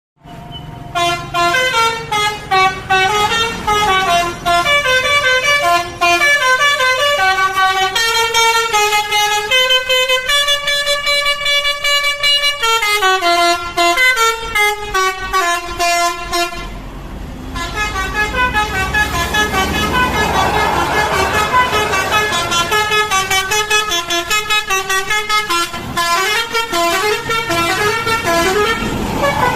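Telolet basuri multi-tone bus horn playing a melody, note after note in quick steps, with a short break about seventeen seconds in. A low rumble sits under the horn in the second half.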